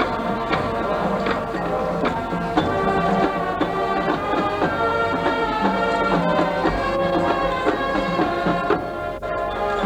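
Marching band playing: sustained brass chords over regular drum strikes.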